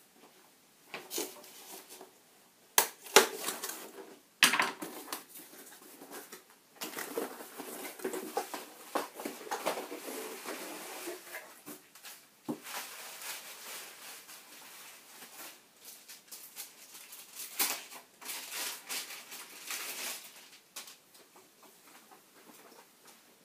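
Hands handling laptop screen parts: a series of sharp clicks and knocks, the loudest within the first five seconds, with stretches of rustling between them.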